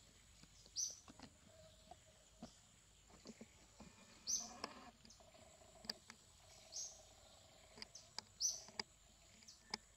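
Faint outdoor ambience with short, high bird chirps every second or two and scattered light clicks.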